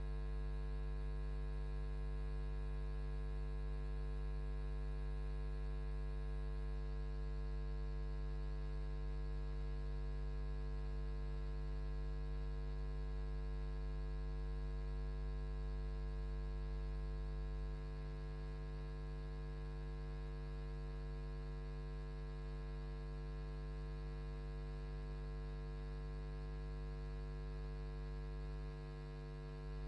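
Steady electrical mains hum with a buzzy row of overtones above it. It drops slightly in level a little past halfway and again near the end.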